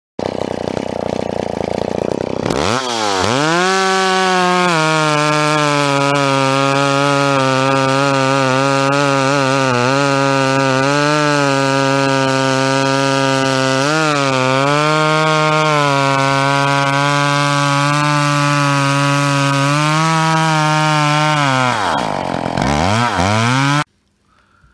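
Two-stroke McCulloch chainsaw revving up to full throttle a couple of seconds in and cutting through a log, its pitch dipping briefly several times as the chain loads in the wood. Near the end the throttle drops, comes up once more, and the sound cuts off suddenly.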